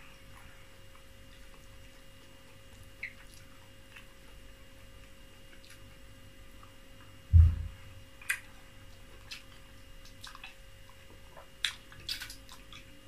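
Close-up eating sounds from a person eating fufu and soup by hand: scattered soft mouth clicks and smacks while chewing. A cluster of wet smacks near the end comes from licking fingers. About seven seconds in there is one loud, low thump, the loudest sound.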